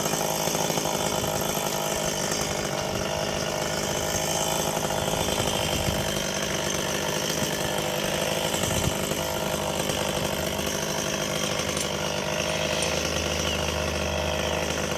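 Chainsaw engine running steadily, without revving up.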